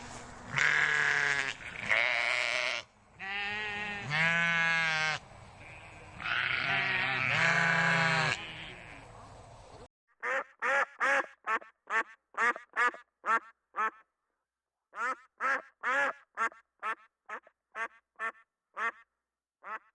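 Several long, wavering bleats from sheep or goats. After a short break comes a quick series of short, clipped duck quacks, about two or three a second, in two runs separated by a brief pause.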